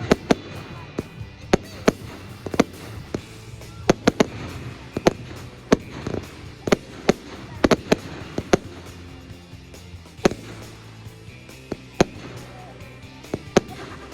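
Fireworks display: an irregular run of sharp bangs from shells bursting, up to a couple a second, thinning out to single bangs in the last few seconds.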